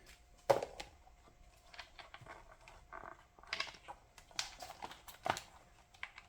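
Handling noise from fitting a new rubber inner tube onto a plastic stroller wheel: scattered light clicks, rustles and knocks, the loudest knock about half a second in.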